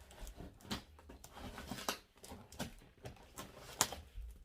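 Cardboard parcel being opened by hand: irregular scraping, tearing and clicking of box and packaging.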